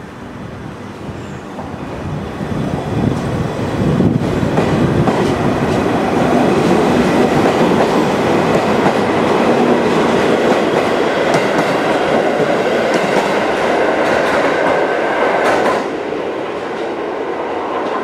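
JR Hokkaido 721 series electric multiple unit pulling away and running past, its motor and wheel noise building over the first few seconds, with wheels clattering over rail joints. The noise stays loud, then drops suddenly near the end as the last car goes by.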